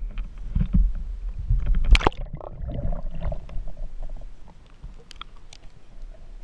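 Rumbling and low thumps from the home-built ROV's camera being handled over the water, then a loud splash about two seconds in as the ROV enters the lake, followed by quieter muffled underwater sound with scattered faint clicks.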